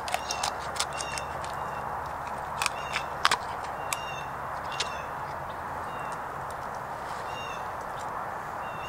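A Becker BK16 knife cracking through a raw chicken's rib bones while cutting out the backbone on a wooden board: a scatter of sharp clicks and snaps, most in the first five seconds. A bird calls in short high notes several times over a steady rushing background.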